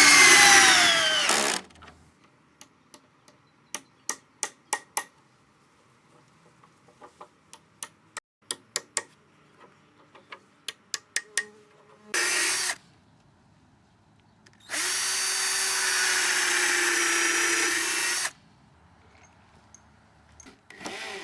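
Cordless drill with a socket driving coach screws into macrocarpa timber in three runs, the longest lasting about three seconds. Between the first two runs come groups of sharp clicks, about three a second, from a socket ratchet tightening the screws by hand.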